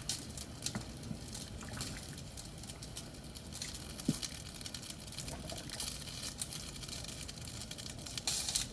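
Liquid splashing and bubbling in a pot of simmering egusi soup as cooked meat is added, with many small pops and ticks.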